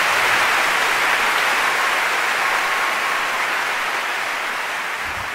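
Large hall audience applauding, a dense even clapping that slowly dies down.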